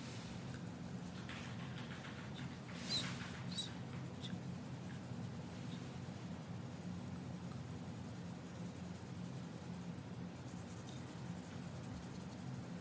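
Colored pencil scratching on paper as it shades, in short back-and-forth strokes, over a steady low hum. A couple of brief sharper ticks about three seconds in.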